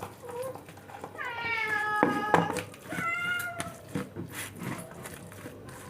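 Domestic cat meowing twice at feeding time: a long call that falls in pitch and then holds, then a shorter one, with a few faint clicks. The cat is begging while its food is being served.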